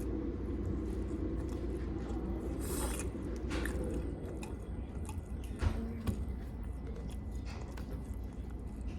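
A person chewing a mouthful of orange chicken close to the microphone, with scattered small mouth clicks over a steady low background hum and one louder thump a little past halfway.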